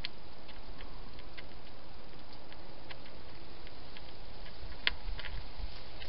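Hedgehog eating from a bowl: irregular small clicks and crunches of chewing, the sharpest about five seconds in, over a steady low hiss.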